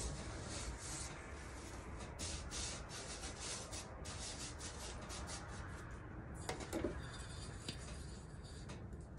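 A hand sweeping and rubbing flour and cornmeal across a metal tabletop, a scratchy swishing in quick repeated strokes. About seven seconds in, a brief knock with a short metallic ring as a stainless steel mixing bowl is picked up.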